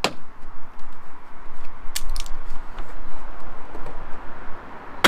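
Plastic wheel arch liner and trim clips being flexed and pulled by hand, a crackling, scraping handling noise with a few sharp clicks, a cluster of them about two seconds in.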